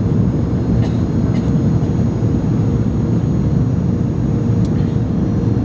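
Airbus A300 jet noise: a steady, loud low rumble with a faint constant hum, and a few light clicks about a second in and near the end.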